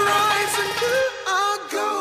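Background music: a pop song with a melodic line and backing instruments, the bass dropping out about a second in.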